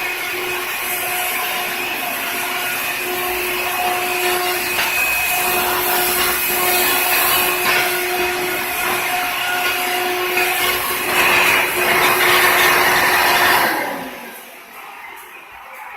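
Hoover Runabout vacuum cleaner running with a steady motor whine and airflow hiss as it picks up baking soda. Near the end it is switched off and the motor winds down.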